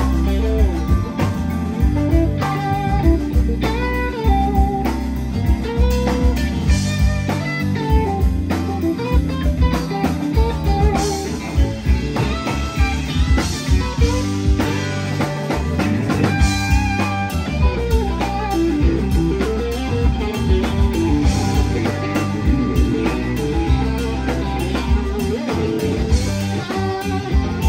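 A live rock band playing an instrumental jam: electric guitar lines over keyboard, bass guitar and drum kit, with a steady drum beat throughout.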